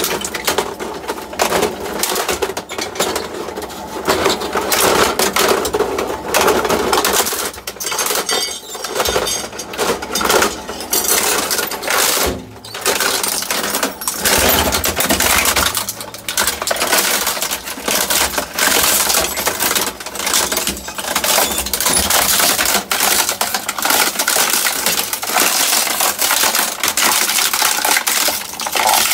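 Twin-shaft shredder's cutter discs chewing up a plastic printer: a continuous, dense clatter of cracking plastic and snapping metal, with a brief lull about twelve seconds in.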